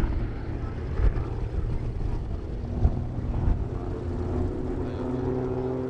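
Distant piston engines of aerobatic biplanes droning, mixed with wind buffeting the microphone; a steady engine note comes through more clearly in the second half.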